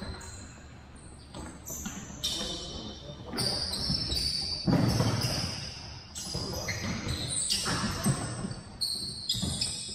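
Sneakers squeaking on a hardwood gym floor as players run and turn, with the thuds of a soccer ball being kicked and bouncing. The loudest thud comes about halfway through.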